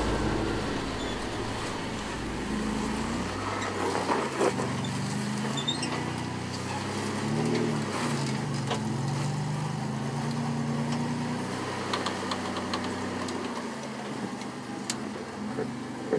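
Rock-crawling buggy's engine revving up and down under load as it climbs a boulder ledge, with a few sharp knocks scattered through.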